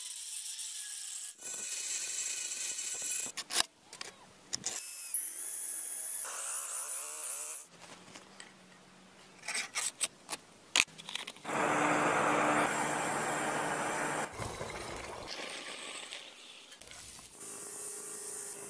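A rapid series of metalworking sounds cut one after another: a power drill boring through a steel blank, sharp clicks and scrapes from hand work, a high whine, and a belt sander grinding steel near the end. The sounds change abruptly several times rather than running as one.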